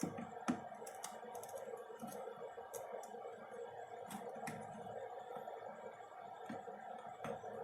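Faint, scattered small clicks and taps of hand tools working on a circuit board during desoldering of an IC, over a steady low hum.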